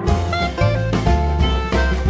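Upbeat instrumental background music with a bass line and short melodic notes.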